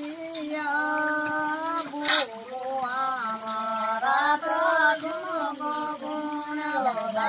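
A woman's voice singing a slow melody in long held notes that slide between pitches, with a single sharp click about two seconds in.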